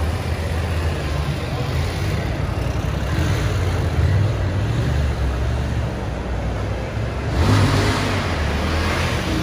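BMW GS adventure motorcycle engine running and revving as the bike is ridden and wheelied at low speed. There is a louder rev about seven and a half seconds in.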